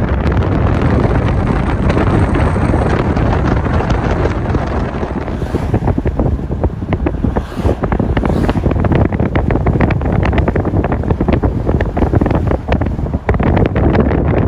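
Strong wind blowing across a phone's microphone: a loud, unbroken low rush of noise, with crackling gusts that grow from about a third of the way in.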